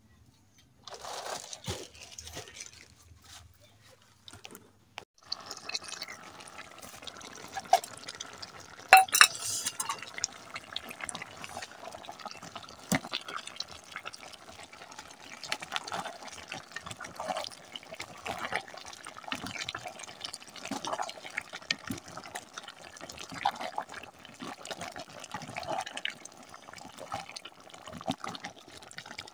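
Matoke stew simmering in a pot, bubbling and popping steadily with many small pops. A few sharper clinks come about eight to ten seconds in.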